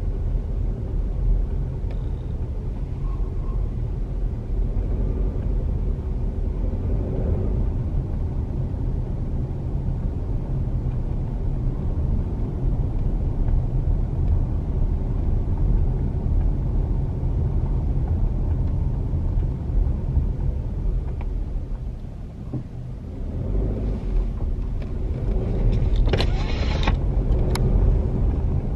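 A car's road noise and engine rumble heard from inside the cabin. The rumble dips briefly about three-quarters of the way through, then a brighter hiss with a few sharp clicks comes in near the end.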